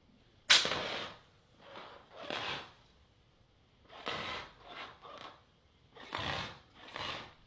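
Hand-held fire extinguisher discharged in short bursts, giving about eight hissing sprays. The first spray starts suddenly about half a second in and is the loudest.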